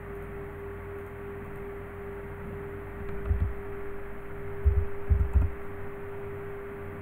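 Steady electrical hum, with a few dull low thumps about three seconds in and again around five seconds in.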